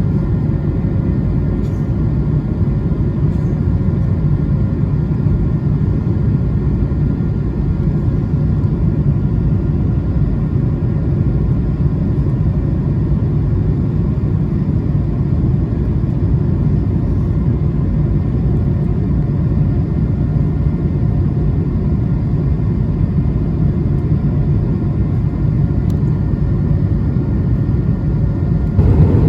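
Steady cabin noise of an Airbus A220-300 climbing shortly after takeoff: a deep rumble of airflow and the Pratt & Whitney PW1500G geared turbofans, with faint steady whining tones above it.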